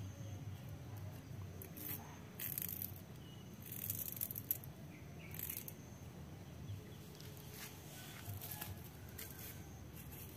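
A small blade scraping and slicing into the green stem of a coconut bonsai in a few short strokes, the loudest about four seconds in, over a steady low hum.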